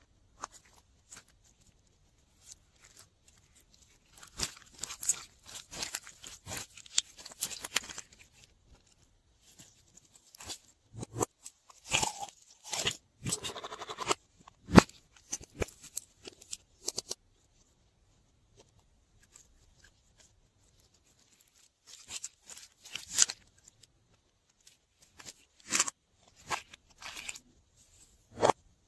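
Slime being squeezed and worked by hand, giving bursts of crackling, crunching clicks that last a few seconds each, with quiet pauses between.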